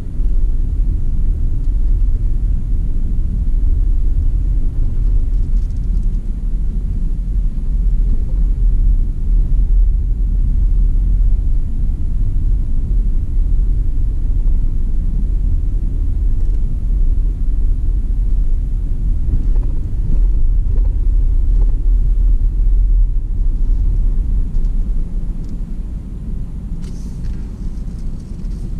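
Car driving on city streets: a steady low rumble of engine and road noise that eases a little near the end.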